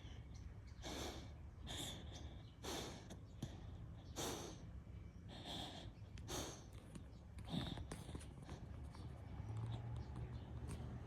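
A sleeping beagle snoring: about seven noisy, snorting breaths at an uneven pace, fading out after about eight seconds. Small birds chirp faintly in the background.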